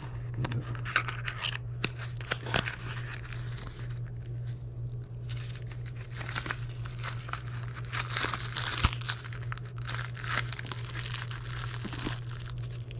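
Plastic packaging crinkling and tearing as a small item is unwrapped by hand, in irregular bursts with a short lull about four seconds in. A steady low hum runs underneath.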